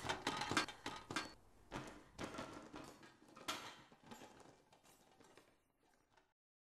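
A close physical struggle: scattered thumps and scuffling, growing fainter and stopping about six seconds in.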